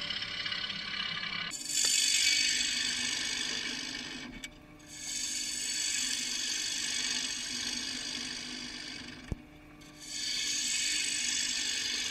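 A bowl gouge cuts the inside of a spinning cherry wood bowl on a wood lathe, giving a shearing hiss as shavings come off. The hiss grows louder about one and a half seconds in and breaks off twice, about four and a half and nine and a half seconds in, with a small sharp click during the second break. A steady low motor hum runs under the cutting.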